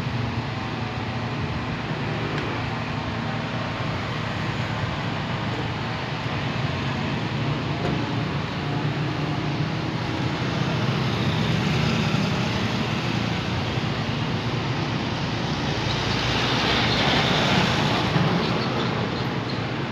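Road traffic on a town street: a steady hum of vehicles, swelling twice as vehicles pass, the louder pass coming a few seconds before the end.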